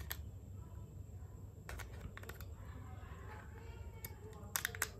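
Light plastic clicks and taps as AA batteries are pushed into a pulse oximeter's battery compartment, a few scattered clicks, then a quick cluster of clicks near the end.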